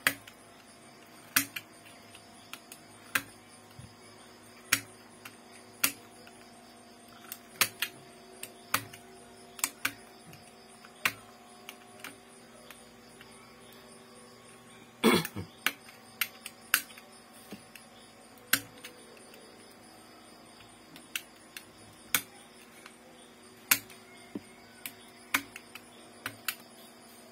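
Sharp, irregular plastic clicks and taps from hands and tools working on a laptop being taken apart, roughly one a second, with a quick cluster about halfway through. A faint steady hum runs underneath.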